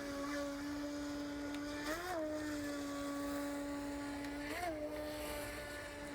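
Electric motor of a Revell Control Tide Breaker radio-controlled speedboat running under way: a steady whine that rises briefly in pitch twice, about two seconds in and again near the middle.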